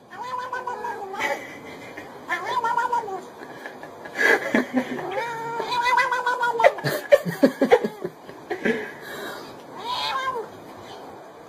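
A cat yowling in a series of long, wavering calls, the longest lasting about three seconds near the middle, with a quick run of short sharp sounds just after it.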